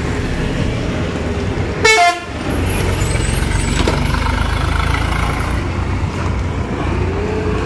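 A vehicle horn toots once, briefly, about two seconds in, over a steady low rumble of road traffic.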